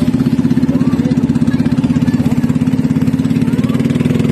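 A small boat's engine running steadily, with a fast, even chugging pulse.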